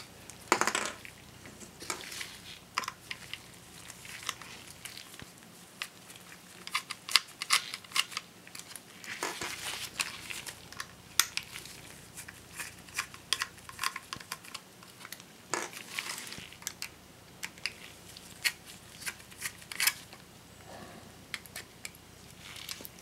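A mini Phillips screwdriver backing small screws out of a laptop hard drive's metal mounting bracket. It makes irregular light clicks and ticks of metal on metal, with short spells of handling rustle.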